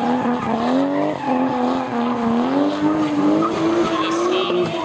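A car engine held at high revs while drifting, its pitch wavering up and down with the throttle and climbing slightly, with the tyres screeching as they slide.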